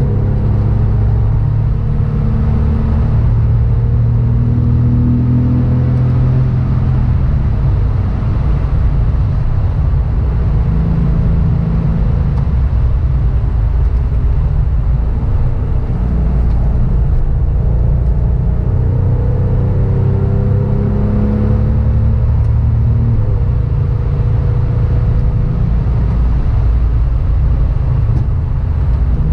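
Porsche 911 (996) flat-six engine pulling hard from inside the cabin, its note climbing in pitch several times as the car accelerates out of bends, over steady tyre and road noise.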